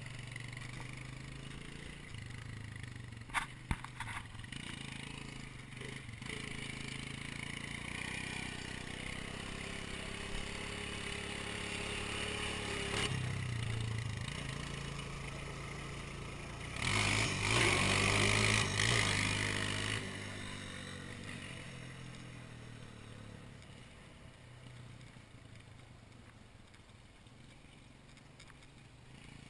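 Small ATV engine running steadily as it rides along, with a few sharp clicks a few seconds in. A loud rush of noise lasts about three seconds a little past the middle, and then the engine fades as the quad moves away.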